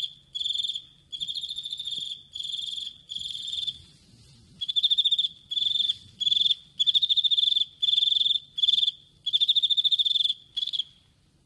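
Male cricket stridulating: a shrill, high-pitched chirping song made of rapid pulses in short trains of about half a second, repeated with brief gaps. There is a longer pause about four seconds in, and the song stops just before the end.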